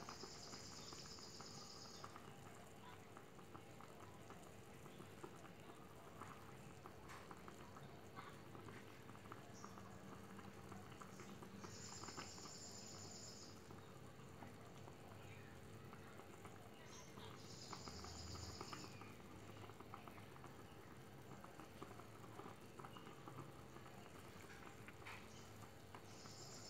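Rendang in thick coconut-milk sauce simmering in a blackened pan, with faint, scattered bubbling pops. A high, even trill sounds in short spells four times.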